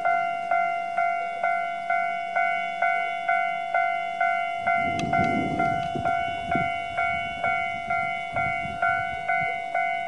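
Japanese railway level-crossing warning bell ringing in its normal tone, struck about twice a second, while the crossing lights flash and the barriers are down to warn of an approaching train. A low rumble rises for a couple of seconds a little after halfway.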